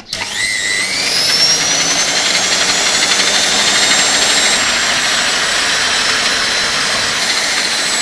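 An automatic washing machine's motor, run directly off 220 V mains, starts suddenly and spins up with a rising whine over the first second or so. It then runs steadily at high speed, belt-driving the bicycle's rear wheel.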